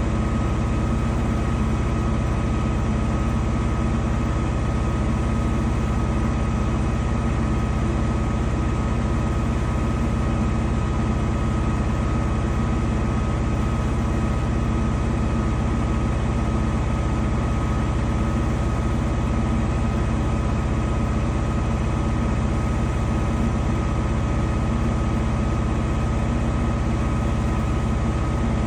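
Danube 20 kg commercial washing machine running steadily late in its cycle: a constant low rumble with a steady high whine, with no change in speed.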